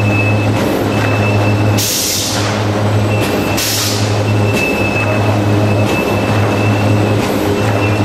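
Corrugated cardboard line's NC cutoff machine running: a steady low mechanical hum that dips at regular intervals, with a thin high whine and faint ticks. Two short hissing bursts come about two seconds and three and a half seconds in.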